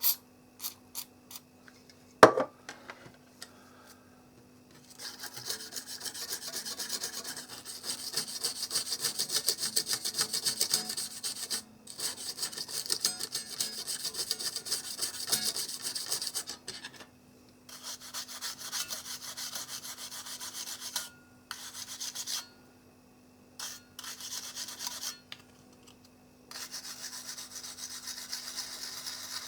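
Toothbrush scrubbing a remote control's circuit board wet with contact cleaner, to clear off solder flux: a fast, fine scratching in spells broken by short pauses. The scrubbing starts about five seconds in, after a few clicks and one sharp knock.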